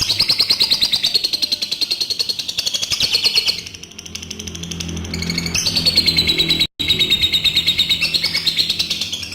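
Adult lovebird giving its long 'ngekek' chattering song: a fast, even run of high chirps held for about three and a half seconds, a short pause, then a second long run.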